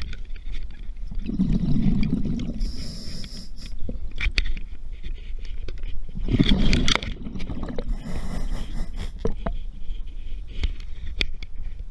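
Scuba diver's regulator breathing, heard underwater: twice, a rumbling burst of exhaled bubbles followed by a hissing inhale, with scattered sharp clicks and knocks in between.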